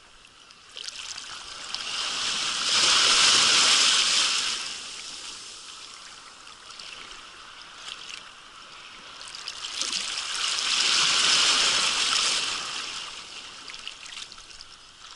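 Shallow surf washing in and out around the shoreline, a rushing water hiss that swells up twice, about eight seconds apart, and dies back in between.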